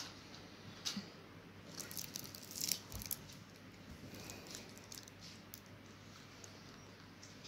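Faint clicks and light rustling from handling the henna cone and paper, bunched together about two to three seconds in.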